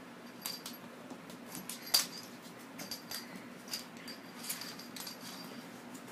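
Small bell on a kitten's collar jingling in short bursts as it plays, with light clicks on a hardwood floor, the sharpest click about two seconds in.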